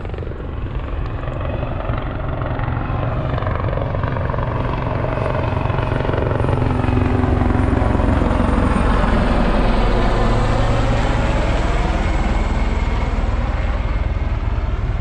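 Low-flying aircraft passing overhead, growing louder to a peak a little past halfway, then easing slightly.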